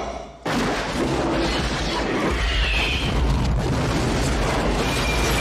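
An explosion on a film soundtrack hits suddenly about half a second in, after a short hush. Its loud noise carries on, and a deep rumble swells about two seconds in.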